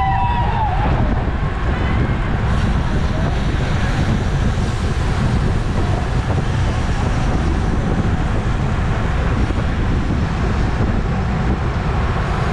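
Steady rush of wind buffeting the microphone of a camera riding along on a bicycle at race speed, heavy in the low end. A brief high-pitched sound comes right at the start.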